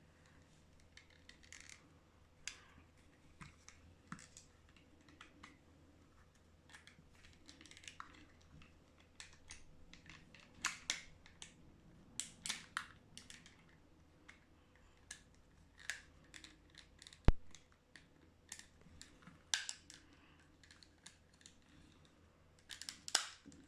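Plastic parts of a uConnect headphone earcup being handled and fitted back together: scattered small clicks and rattles, with one sharp snap about seventeen seconds in.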